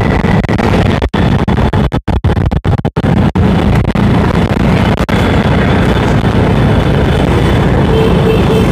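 Motorcycle engines running in a large moving convoy, with wind rushing over the microphone. There are several sharp brief dropouts in the first few seconds.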